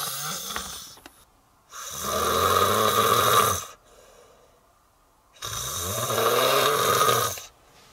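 A person snoring: three long snores about two seconds each, coming every three to four seconds with quiet breaths between.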